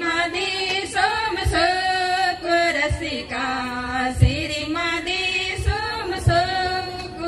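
Several women singing a repeated verse together through microphones and a PA, with a short low thump about every second and a half.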